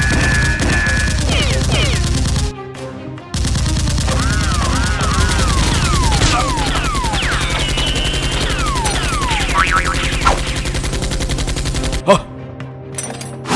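Sustained rapid automatic gunfire sound effects, with a brief break about two and a half seconds in and falling whizzing tones laid over the fire. The fire cuts off suddenly near the end.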